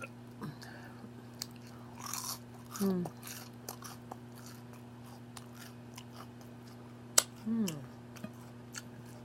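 Close-up eating sounds: chewing and smacking on a mouthful of food, with small wet mouth clicks. There are two short, low throat sounds falling in pitch, about three seconds in and again near seven and a half seconds.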